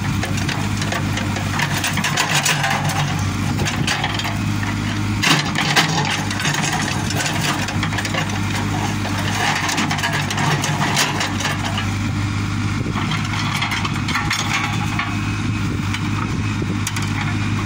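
JCB 3CX backhoe loader's diesel engine running steadily while the backhoe bucket scrapes and crunches through rocks and earth, with two sharp knocks about five to six seconds in.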